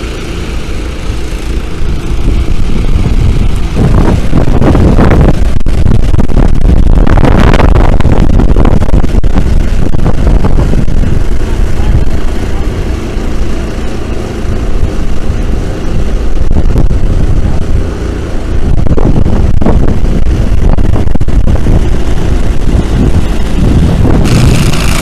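Engine-driven water pumps running steadily, with a few louder swells. They are sucking water from the shoreline side into the AquaDam so the lake pressure pushes the dam back against the bank.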